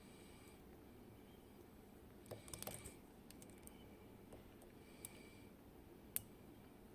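Faint small clicks of a lock pick working the pins inside a Kaba Gemini Plus lock as it is picked. There is a quick cluster of ticks a little over two seconds in, then single sharp clicks near five and six seconds.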